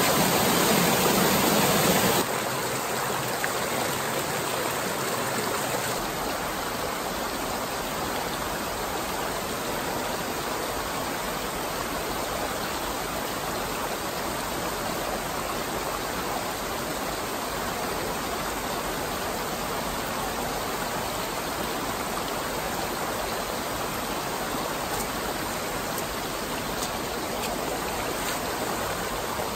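Water rushing over a small waterfall and cascade on a rocky brook, a steady rushing noise. It is louder for the first two seconds, then settles a little softer and steady.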